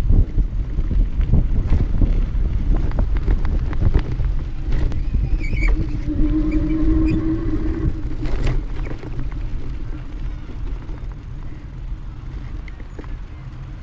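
Wind buffeting the camera microphone and tyre rumble from a bicycle ridden over a rough dirt lot, with frequent knocks from bumps. A brief steady squealing tone sounds from about six to eight seconds in. The rumble eases near the end on smooth pavement.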